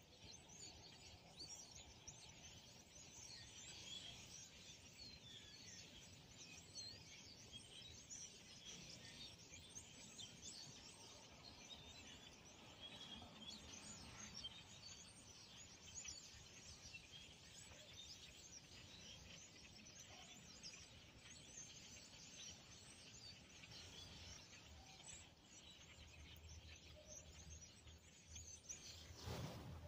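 Faint, dense chatter of a large flock of starlings calling at once: a continuous wash of many short, high chirps.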